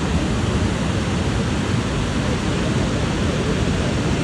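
Steady, loud rush of water pouring over the Kravica Waterfalls, a dense even noise with no breaks.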